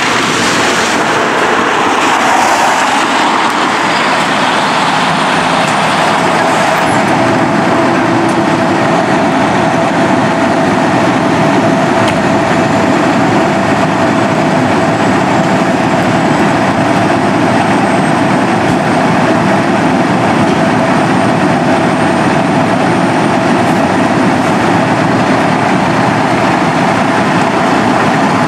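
Fire truck diesel engines idling in the station bays, a steady rumble, with a steady tone joining about five seconds in.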